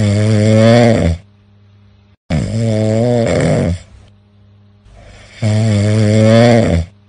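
A person snoring loudly in a steady rhythm: three long, pitched snores, one about every two and a half seconds, with quiet breathing between them.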